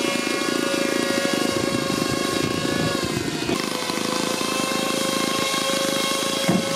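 Electric motors and air propellers of an RC rescue pusher craft running steadily with a high whine, its pitch dipping briefly about three and a half seconds in, as it pushes a floatplane across the water.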